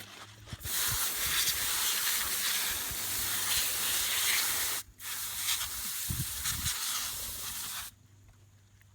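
Garden hose spray nozzle hissing as it washes soil off freshly dug turmeric roots, in two long bursts with a brief break between them.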